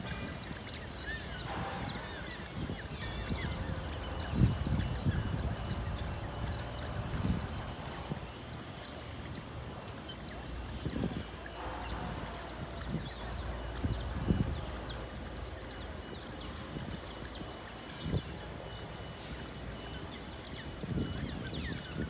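A family of smooth-coated otters chirping and squeaking, many short high calls overlapping. A few low thumps on the microphone, the loudest about four seconds in.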